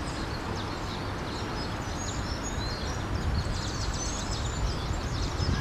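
Birds chirping with many short high calls and quick pitch slides, over a steady hiss and low rumble.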